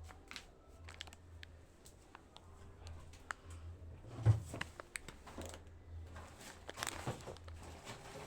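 Scattered small clicks, knocks and light rustles of groceries and containers being handled, with one sharper knock about four seconds in, over a low steady hum.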